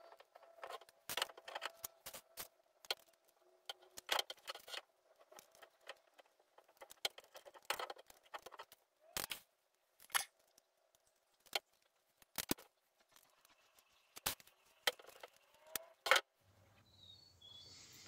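Light metallic clicks and jingles from bicycle spokes and brass nipples handled against a Mavic 517 rim, as nipples are threaded onto the spoke ends while a wheel is laced. The clicks come singly and in small clusters at irregular intervals.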